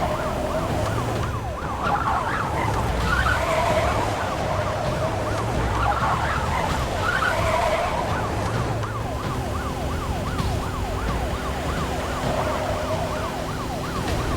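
Police-style siren in a fast yelp, its pitch sweeping up and down several times a second over the low running of a car engine during a car chase.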